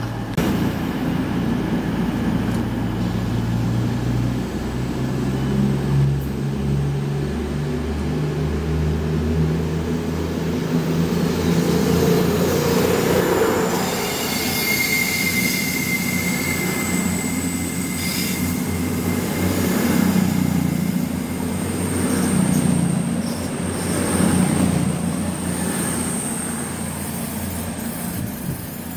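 CrossCountry Voyager diesel multiple unit accelerating away from the platform: its underfloor diesel engines rise in pitch over the first ten seconds, then the rumble and clatter of the coaches passing takes over, with thin high squeals from the wheels in the second half.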